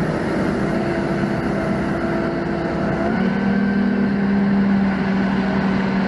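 Doosan 4.5-ton forklift's engine running under way, a steady hum heard from inside the cab; about three seconds in its note shifts and settles into a stronger steady tone as the engine speed changes.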